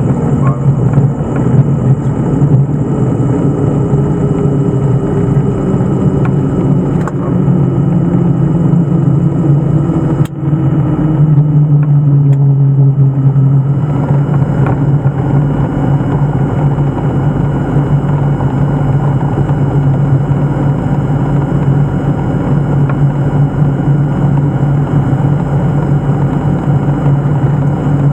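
Diamond DA42 twin-engine aircraft's engines and propellers running at taxi power, heard from inside the cockpit: a steady low drone, with a second tone sliding slowly down in pitch during the first half.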